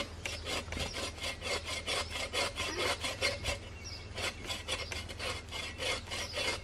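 Hand saw cutting through a log, its teeth rasping through the wood in quick, even back-and-forth strokes, about five a second.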